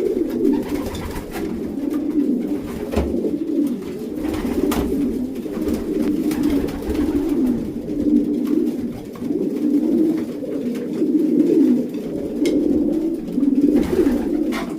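Racing pigeons cooing continuously, many cocks and hens calling over one another in the loft, with a few faint taps among them.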